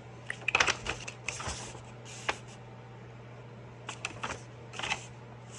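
Paper and packaging being handled: crinkling and rustling with sharp clicks, in a few short bursts.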